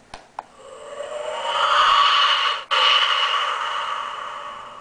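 Electronic sound effect played from the Star Trek Enterprise-D toy ship's speaker: two quick clicks, then a whooshing swell with steady tones that builds over about two seconds, breaks off for an instant, and fades away.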